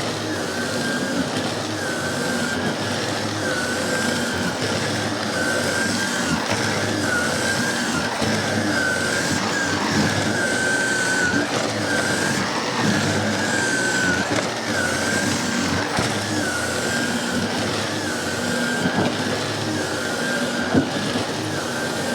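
Miele S5 Callisto canister vacuum cleaner running, with a steady rush of suction and a high whine that dips and rises every second or two.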